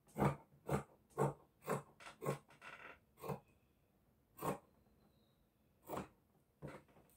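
Dressmaking scissors snipping through lace fabric: a quick run of snips about two a second, then slowing to a few spaced snips in the second half.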